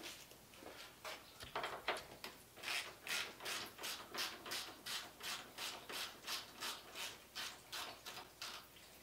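Hand ratchet wrench worked back and forth on a bolt: a few uneven rasps, then a steady run of short ratcheting strokes about three a second that stops near the end.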